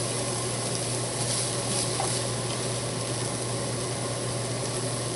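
Steady hiss of food still sizzling in a pan on the stove, over a constant low hum, with a few faint utensil clicks.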